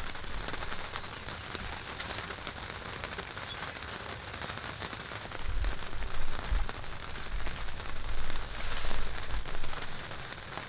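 Steady rain pattering, a dense run of fine drips. Low rumbling swells from about halfway to near the end are the loudest part.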